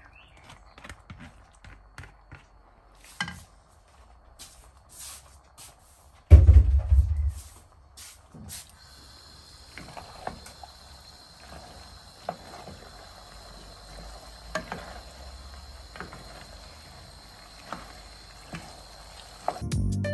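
A wooden spoon scraping and tapping against a metal pot as cooked tagliatelle is tipped from a plastic colander and stirred into meat sauce, with a loud low thump about six seconds in. Later there is a faint steady hiss under the soft taps of the stirring.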